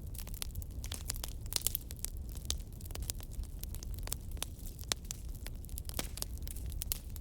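Fire crackling: irregular sharp pops and snaps over a steady low rumble, with a louder cluster of pops about a second and a half in.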